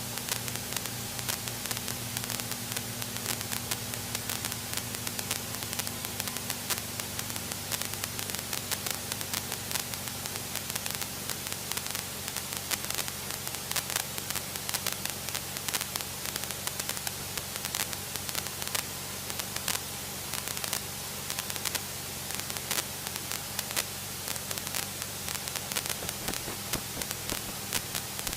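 Steady hiss from a light aircraft's headset intercom, crackling with frequent small clicks, over a low steady hum from the Cessna's engine as it taxis at idle.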